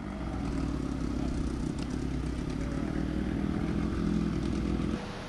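An engine running steadily with a low hum, cutting off suddenly near the end.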